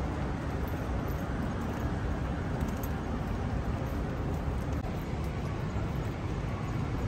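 City street ambience: a steady low rumble of road traffic, with no distinct events standing out.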